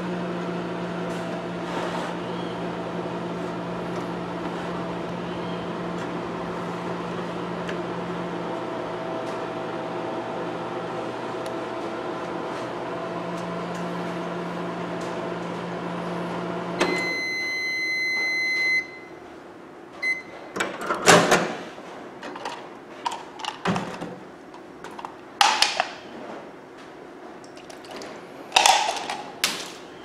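Microwave oven running with a steady low hum, now working normally on a new fuse after its faulty high-voltage capacitor was replaced. A bit past halfway the hum stops and the oven beeps. Then come a few knocks and handling sounds from the door and a glass.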